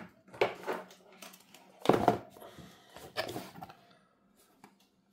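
Handling noises: a few short, irregular bursts of rustling and knocking as a handheld air duster and its cardboard box are picked up and moved. The loudest comes about two seconds in, and it goes quiet after about four seconds.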